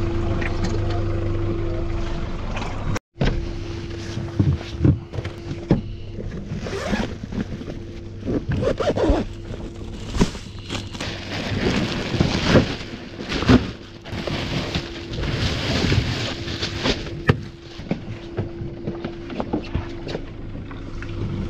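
Yamaha 115 outboard motor running steadily under a string of zipping, rustling and scraping sounds as an insulated fish bag is opened and fish are handled on the fibreglass deck. The handling noises cluster through the middle of the stretch and thin out near the end.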